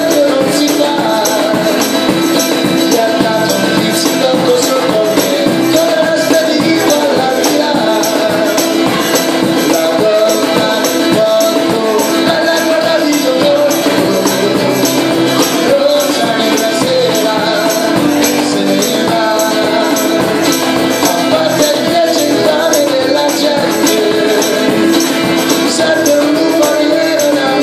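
Live acoustic band music: strummed acoustic guitar with a tambourine shaken and struck in a steady, even rhythm and a cajón keeping the beat.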